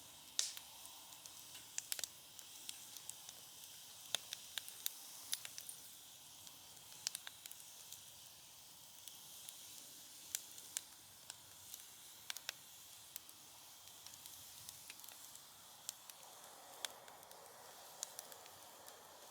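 Wood fire crackling, with irregular sharp pops and snaps over a steady soft hiss. The pops come thickest and loudest in the first few seconds.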